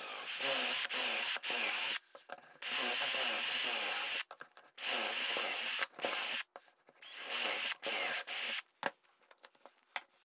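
Milwaukee M18 cordless drill boring four dowel holes through a metal doweling jig into a pine leg: four runs of about a second and a half each, the motor's whine dipping as the bit bites into the wood and recovering. A few light taps follow near the end.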